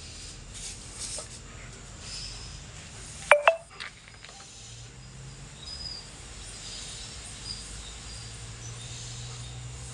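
Night ambience of insects chirping steadily, with two short sharp sounds about three and a half seconds in and a low steady hum coming in about halfway.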